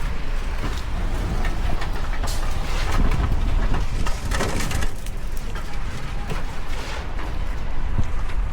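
City street ambience: a steady low traffic rumble with scattered short crunches and knocks.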